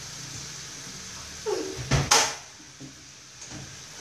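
Stir-fry sizzling steadily in a steel wok, broken by a single sharp bang about two seconds in, after which the sizzle is fainter.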